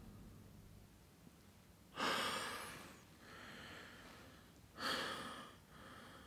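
A person breathing heavily: two sharp, noisy breaths about three seconds apart, each followed by a softer breath out.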